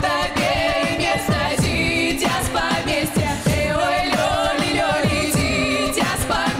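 Female voices singing a Russian folk-style song together, with wavering, held notes, over a deep electronic beat whose kick drums drop in pitch.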